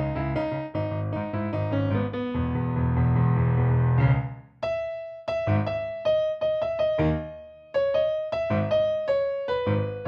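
Solo piano playing a pop-rock song arrangement. Full chords with a heavy left-hand bass give way, after a brief pause about four seconds in, to a sparser passage of separately struck notes that keep returning to one repeated higher note, with little bass.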